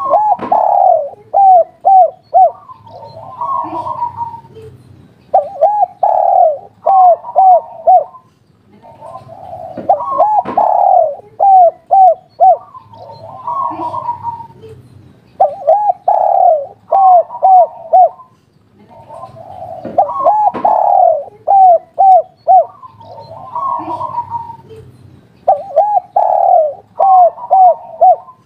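Spotted dove (tekukur) singing its 'kuk 3' coo over and over: each phrase is a longer coo followed by a quick run of short hooting notes, repeated about every five seconds, six times in all.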